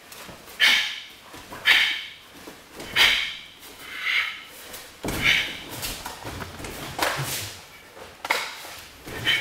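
Nunchaku swishing through the air in repeated swings, about eight of them roughly a second apart, each a quick rise and fall. From about halfway there are also a few dull thumps.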